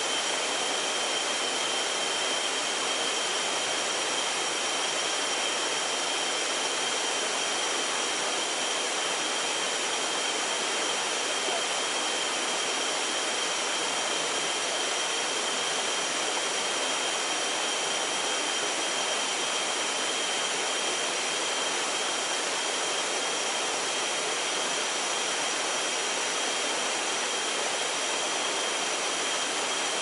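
Waterfall and river water rushing in a steady, unbroken wash of noise, with a faint steady high-pitched tone above it.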